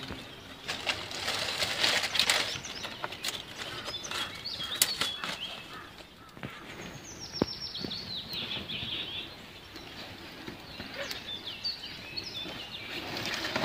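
Dry leaves and twigs rustling, snapping and crackling as they are handled and laid for a small fire. A bird sings a quick falling run of high notes about seven seconds in, with scattered chirps elsewhere.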